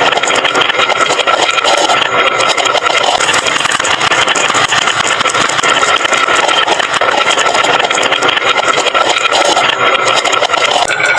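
Many glass marbles rolling and clattering down a wooden marble-run slope: a steady, dense rattle of rapid clicks with a constant rolling hum.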